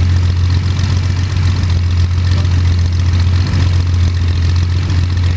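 Jabiru 3300 six-cylinder air-cooled aircraft engine running steadily, its propeller turning, with an even low hum.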